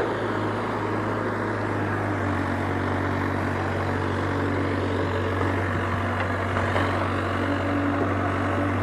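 Diesel engines of an excavator and a tractor running at a steady speed with a constant low drone, with no revving.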